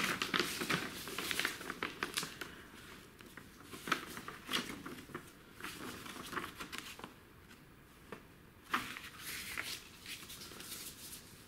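An old paper tourist brochure being handled: unfolded, leafed through and folded shut by hand, with dry paper rustling and crinkling in short strokes, busier in the first few seconds and with a louder rustle about nine seconds in.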